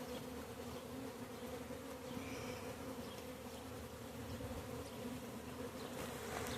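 A swarm of honey bees buzzing steadily, a dense hum of many wings; the colony has just been disturbed by a hive removal and is agitated.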